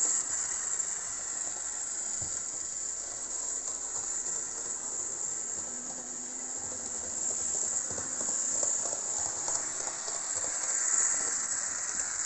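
HO-scale model railcar running along the track: a steady high hiss from its small electric motor and wheels on the rails, with a few faint clicks.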